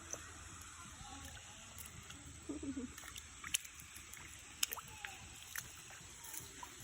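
Steady rush of a waterfall, with a few sharp clicks about midway and a brief faint voice.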